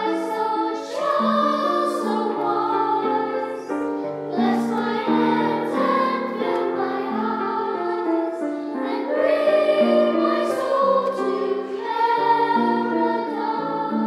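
Children's choir singing a slow, gentle anthem with piano accompaniment.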